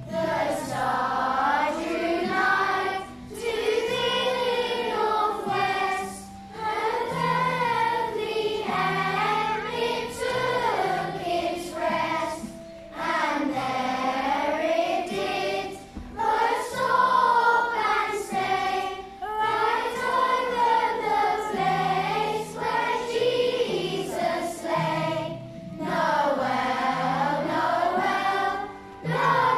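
Children's choir singing a Christmas carol together, in phrases of a few seconds with short breaks between them.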